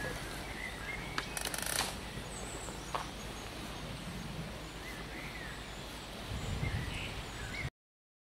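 Outdoor ambience with small birds chirping now and then over a low steady background noise, and a few short sharp clicks between about one and three seconds in. The sound cuts off suddenly near the end.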